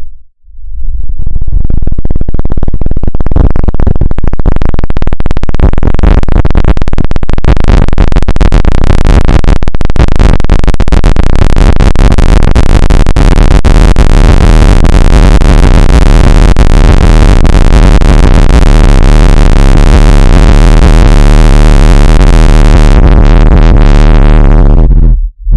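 Loud, distorted synthesized electronic noise: a dense harsh buzz over a steady low drone. It cuts out for a moment just after the start, fills in over the first few seconds, and cuts out again briefly near the end.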